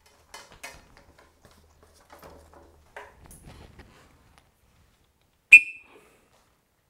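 One short, shrill blast on a falconer's whistle about five and a half seconds in: the recall signal calling the Harris's hawk to the glove. Faint rustles and clicks come before it.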